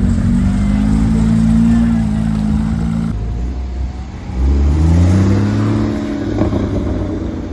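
Porsche engine under hard acceleration, its note climbing and then holding high. About halfway through, a second Porsche engine pulls away, its pitch rising for a couple of seconds and then fading.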